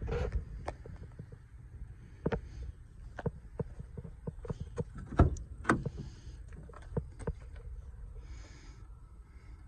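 Driver's door of a 2004 Chevrolet Silverado pickup being opened: sharp clicks and knocks from the handle and latch, the loudest pair about five seconds in, over low rumble from handling and wind on the microphone.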